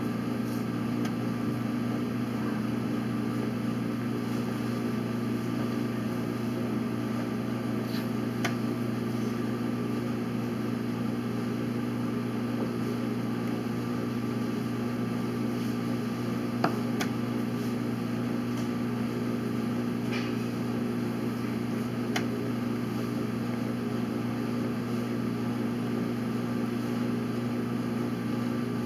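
Steady low room hum, with a few faint clicks and one sharper click about two-thirds of the way through.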